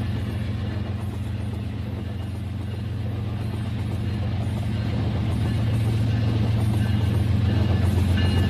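Battery-powered toy train's motor and wheels running along plastic track with a steady hum and rattle, getting louder in the second half as it comes closer.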